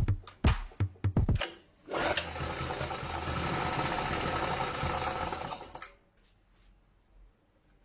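A few sharp knocks, then a small motor-driven tool runs steadily for about four seconds and stops about six seconds in, followed by faint ticks.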